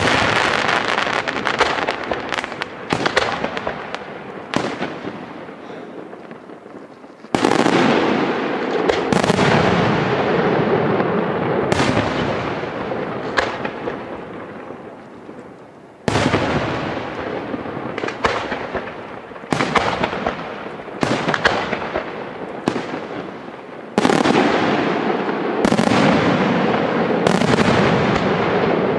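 Aerial firework shells bursting in quick succession: sharp reports and dense crackling. Three especially loud salvos hit suddenly, about seven, sixteen and twenty-four seconds in, each fading out in crackle before the next.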